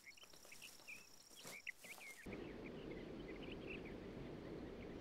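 Faint natural ambience: scattered short high chirps over a thin steady insect-like buzz. About two seconds in it changes to a steady low rushing noise, with a few chirps still heard through it.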